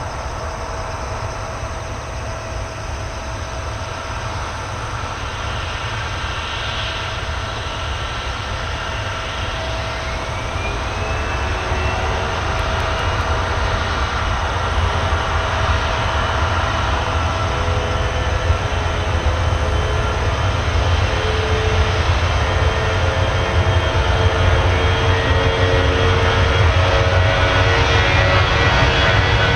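Airbus A320-200 twin jet engines at takeoff power during the takeoff roll: a deep rumble with a steady whine that glides up in pitch about ten seconds in and then holds, growing steadily louder as the airliner comes on.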